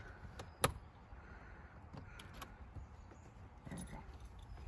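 Keys jingling and small metal rattles at a travel trailer's entry door as it is unlocked and opened, with one sharp latch click about half a second in and a few lighter clicks later.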